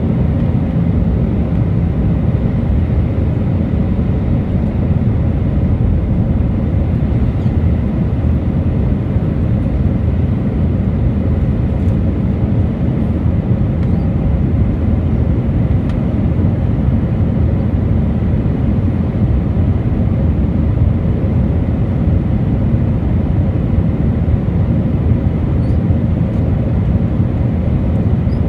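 Steady cabin noise inside an Airbus A319-100 in flight on approach: a continuous low rumble of the engines and airflow, with a faint steady high tone and no change in level.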